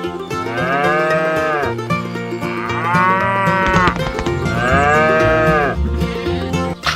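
Cattle mooing three times, each call about a second and a half long, rising then falling in pitch, over background music.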